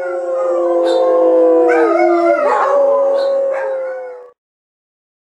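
Pit bull-type dog howling, long drawn-out howls held at a steady pitch, cutting off suddenly about four seconds in.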